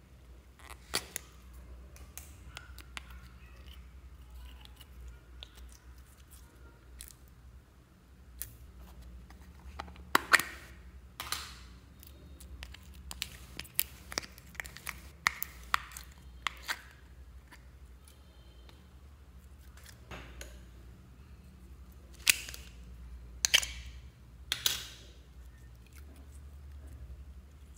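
Slime being squeezed and tipped out of small plastic tubs into a glass bowl: irregular sticky clicks, pops and squelches, with a busier stretch around the middle and a few louder ones near the end, over a steady low hum.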